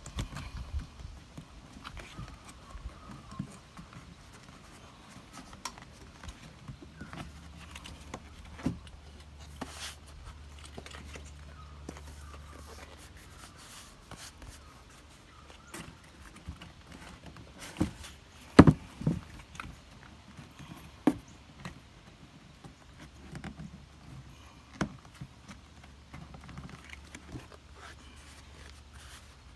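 Handling noise from a leather cover being stretched and smoothed over a plastic armrest lid by hand: scattered rustles, taps and clicks, with a few sharper knocks a little past halfway. A faint low hum comes and goes underneath.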